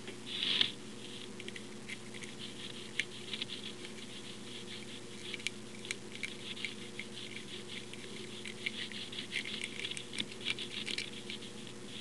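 A W-rake lock pick raking over the pin tumblers of a 1939 Wilson Bohannan four-pin padlock: light metallic scratching and clicking in uneven bursts, with a louder scrape about half a second in.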